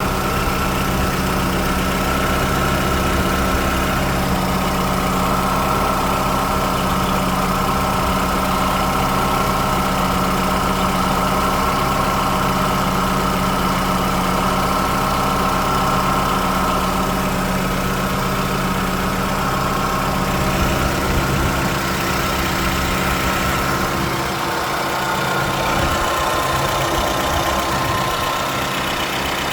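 Maruti Zen idling with its air conditioning system running: a steady engine hum with a steady higher-pitched whine over it. About three-quarters of the way through, the deep part of the hum thins out and the tones shift slightly.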